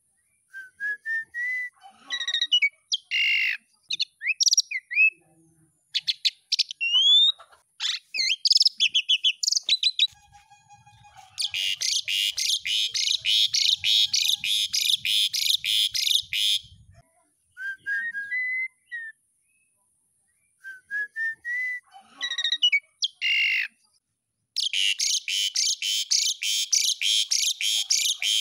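Asian pied starling singing. It starts with a run of short rising whistled notes and varied whistles and slides. In the middle and again near the end come long stretches of rapid, dense chattering.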